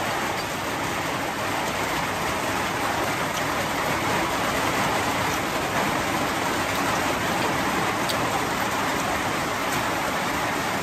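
Steady rain falling: a dense, even hiss with a few single drop ticks.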